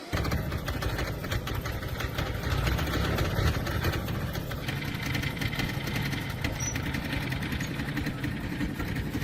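Small engine running steadily at idle, a rapid even firing beat with a heavy low rumble.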